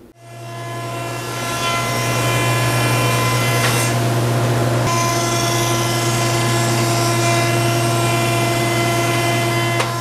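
A 20-inch Jet helical-head planer running at its factory low feed rate of 24 feet per minute, a steady hum and whine as a board is fed through.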